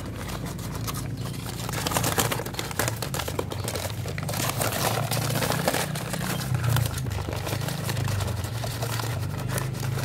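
Brown paper wrapping crinkling and rustling as it is handled and shaken, a steady stream of small crackles and scrapes over a steady low hum.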